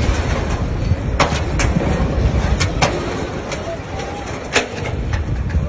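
Low wind rumble on the microphone, with faint voices and several sharp clicks, the loudest about four and a half seconds in.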